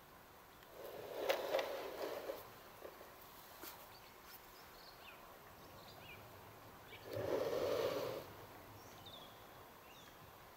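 Handling noise from a StreamPro ADCP float being turned by hand on its case for a compass calibration: two short bouts of rustling and scraping, about a second in and again about seven seconds in, with a few light knocks.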